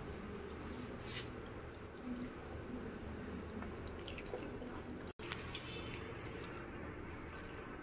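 Faint, soft squishing of cooked rice and amaranth leaf curry being mixed by hand on a steel plate, with quiet chewing and a few small clicks.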